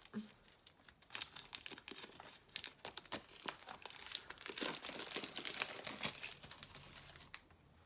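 Clear plastic shrink-wrap being torn and pulled off a small cardboard card box, crinkling and crackling, dying away near the end.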